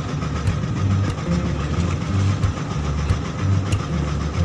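Fishing boat's engine running steadily, with a heavy low throb that swells and fades about once a second and a steady hum above it.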